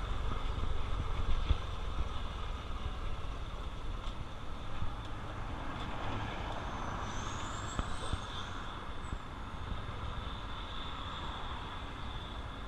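Honda CT125 Trail's 125 cc single-cylinder engine running steadily under way, with a low rumble and noise on the helmet-mounted camera's microphone. A faint high whistle rises and falls about seven seconds in.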